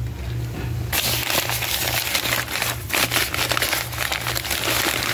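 Newspaper crumpling and crinkling as tomatoes wrapped in it are unwrapped by hand, starting about a second in, over a steady low hum.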